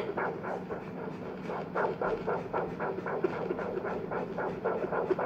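PuppyDop fetal Doppler's loudspeaker sounding the heartbeat picked up by its probe on a pregnant dog's belly. It is a rapid, even pulse of about three to four beats a second, a fetal puppy's heart, over a steady low hum.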